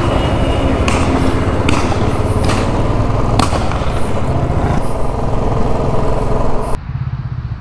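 Motorcycle engine running with a rapid low pulsing as the bike pulls out and rides along the highway, with wind rushing across the microphone and a few sharp knocks. Near the end the sound abruptly turns duller and quieter.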